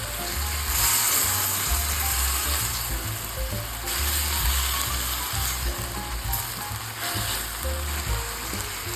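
Food sizzling in hot oil in a frying pan, a steady hiss, under background music with a pulsing bass and short melodic notes.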